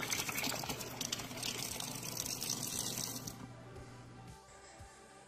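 Water running from a reverse osmosis drinking-water faucet into a sink as a steady hiss. It trails off about three to four seconds in.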